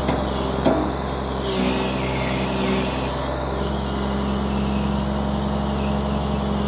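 Komatsu PC200LC-3 excavator's diesel engine running steadily at low rpm while digging, its note shifting slightly as the hydraulics take load. A single sharp clank a little under a second in.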